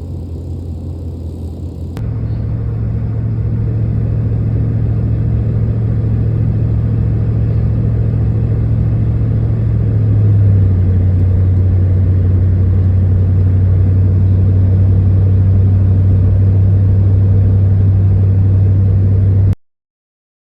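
GMC Envoy Denali's engine running at idle, a steady low hum. The pitch drops slightly about halfway through, and the sound cuts off suddenly near the end.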